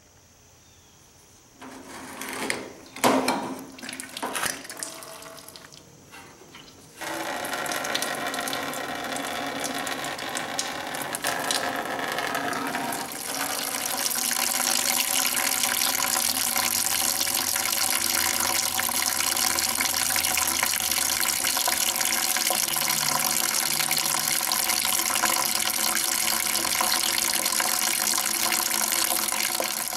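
Antifreeze draining from a tractor radiator's bottom drain, pouring in a steady stream into a plastic bucket and splashing. A few knocks and rattles come first, and the pouring starts about seven seconds in and gets a little louder soon after.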